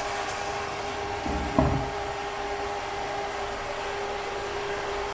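Braised pork belly simmering in a wok under a steady hiss with a steady hum, and a single clunk about a second and a half in as the glass lid is set down on the wok.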